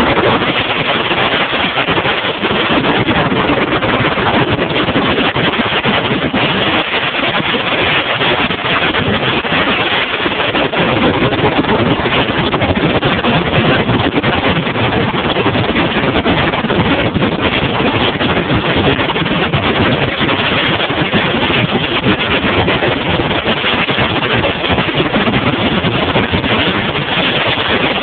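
Motorboat under way: the outboard motor running with the rush of wind and water, an even, loud noise that doesn't let up.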